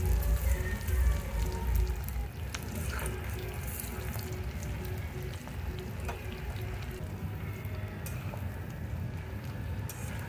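Batter-coated banana-flower pakoras sizzling as they deep-fry in hot oil in a kadai, a steady crackle with a few small clicks.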